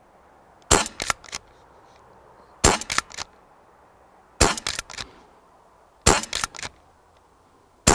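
Umarex RP5 CO2-powered pump-action air rifle fired four times in steady succession, each sharp shot followed by the clack of the pump action being worked back and forward to load the next pellet; a fifth shot comes right at the end.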